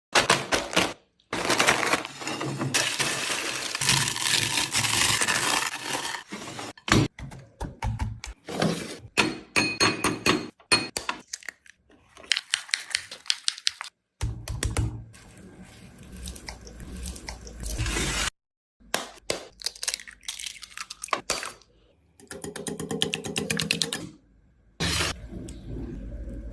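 Crunchy chicken being broken apart and eaten: repeated sharp crunches and cracks with clinks of dishes, in short runs that stop abruptly.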